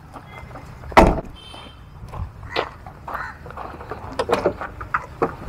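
A pickup truck's cab door slammed shut about a second in, followed by footsteps and a run of light metallic clicks and knocks as the bonnet is unlatched and lifted.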